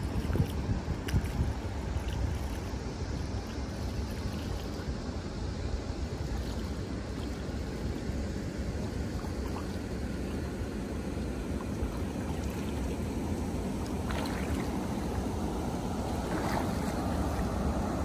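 Wind rumbling on the microphone over lake water lapping against a small boat, steady throughout, with a few light splashes in the last few seconds.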